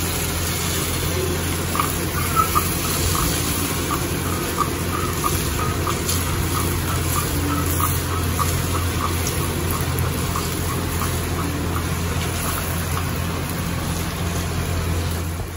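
Strands of idli batter deep-frying in hot oil in a kadai, sizzling steadily with a fine crackle, over a steady low hum.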